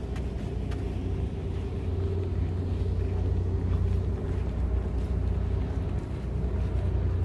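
Steady low engine rumble of a docked harbour cruise boat running before departure, with a faint steady hum above it.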